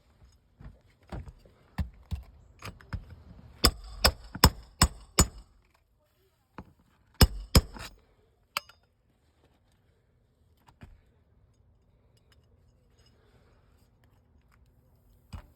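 Nails being driven into roof shingles. A few lighter knocks come first, then a run of five sharp, ringing metal strikes about two and a half a second, then three quick strikes and one more, after which it goes quiet.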